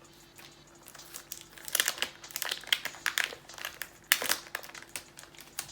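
Crinkling of the wrapper on a sticker sheet as it is handled and opened by hand, in irregular crackly bursts that start about a second in and peak around four seconds in.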